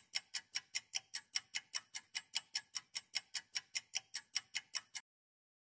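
Clock-ticking sound effect: fast, even ticks at about five a second that stop abruptly about five seconds in.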